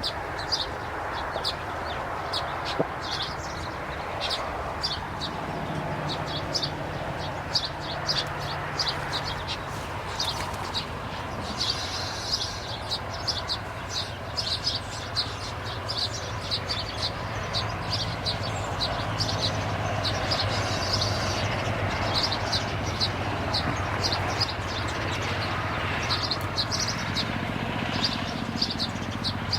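Small birds chirping: a rapid string of short, high chirps, several a second, over a steady low background hum.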